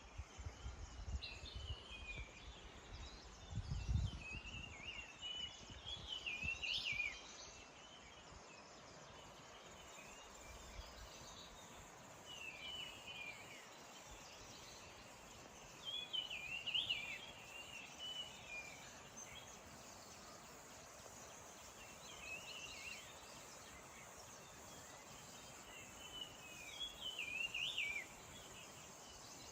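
A songbird singing short warbled phrases, repeated every four to six seconds, over a faint steady outdoor hiss. A low rumble runs through the first seven seconds, loudest about four seconds in.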